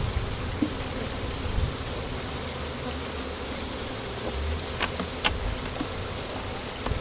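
Buzzing of a freshly installed package of honeybees swarming around an open hive box, a steady hum. A couple of light clicks sound about five seconds in.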